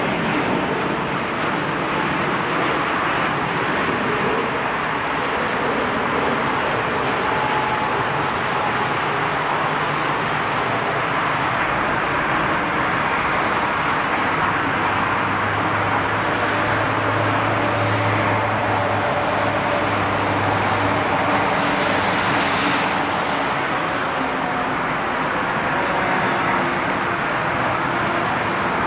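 Jet noise from an Airbus A380's four engines: a loud, steady rumble. A low steady hum sits under it through the middle, and a brief rise in hiss comes a little past two-thirds of the way in.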